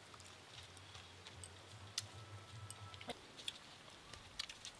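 Faint eating sounds: scattered small clicks and smacks of chewing and of fingers picking through rice and hilsa fish, with a faint low hum in the first three seconds.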